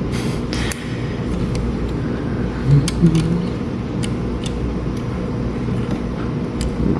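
Light plastic clicks and taps of LEGO pieces being handled, a few scattered about a second apart, over a steady low background rumble.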